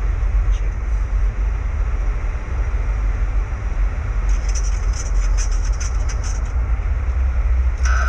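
Steady low rumble of airflow and engines heard inside a Boeing 737 flight deck on final approach. In the middle comes a quick run of light clicks lasting about two seconds.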